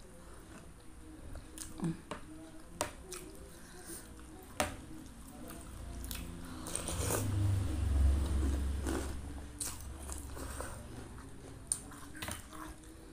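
Close-up eating sounds: chewing a soft boiled egg and instant noodles in broth, with sharp clicks of a metal spoon against the plate. About halfway through there is a longer, louder stretch as a spoonful of noodles is slurped in.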